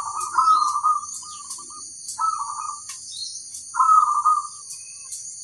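Crossbred zebra dove (perkutut) cooing: three bouts of its rolling, warbled call, the first and longest near the start, the others about two and four seconds in. Behind it runs a steady high-pitched shrill with scattered sharp chirps.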